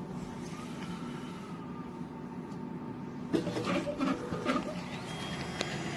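Cutex TBC-127VF vertical blind cutting machine running with a steady hum. About halfway through comes a short cluster of louder irregular clatter, and a few sharp clicks follow near the end.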